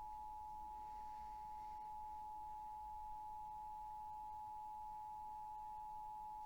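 Emergency Alert System two-tone attention signal, 853 Hz and 960 Hz sounded together as one steady, unwavering tone that cuts off abruptly near the end. It is the alert tone of a required monthly EAS test broadcast.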